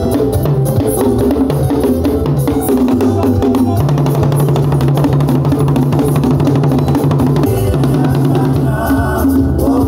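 Fast hand drumming on tall wooden barrel drums over music with a steady bass line.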